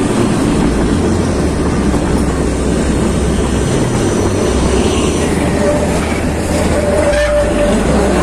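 Narrow-gauge Kalka–Shimla toy train running along its curving mountain line, heard from an open coach doorway: a steady, loud rumble and rattle of wheels and coaches on the track, with a faint thin tone coming and going in the second half.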